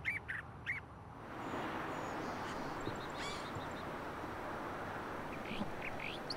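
A bird gives a few quick, repeated calls in the first second, then a steady rushing background noise takes over, with a few faint bird chirps, some falling in pitch near the end.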